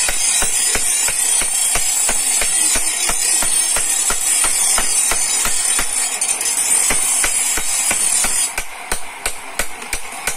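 Small hammer tapping a steel chisel against a stone grinding slab, quick even taps several a second, pecking a rough texture back into the grinding surface. A high steady hiss runs underneath and stops about eight and a half seconds in.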